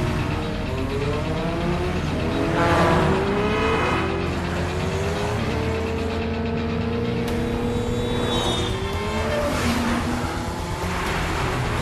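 Motorcycle and car engines in a high-speed road chase, revving up and down in overlapping rising and falling notes over a steady low rumble. Vehicles rush past several times.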